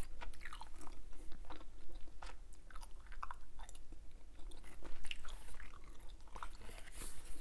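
Hubba Bubba bubble gum being chewed: an irregular run of small smacks and clicks from the mouth.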